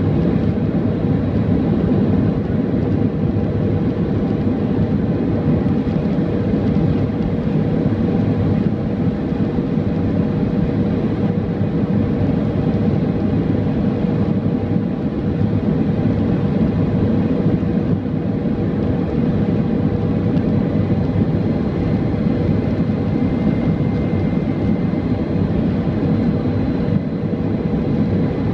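Boeing 737-400 cabin noise during the landing approach: the steady drone of its CFM56-3 turbofan engines and the airflow past the fuselage. It is a loud, even hum with a faint steady whine held in it.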